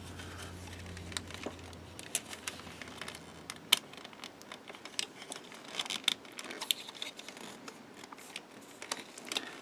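Light, scattered clicks and taps of small plastic model parts being handled, as a plastic roll-cage hoop is pressed into a plastic model car body for a test fit. A faint low hum sounds for the first two seconds.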